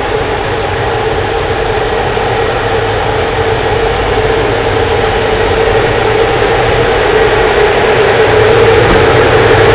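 CFR Class 41 (060-EA) 5100 kW electric locomotive running slowly past, a steady hum with one clear mid-pitched tone over a low rumble, growing louder as it draws closer.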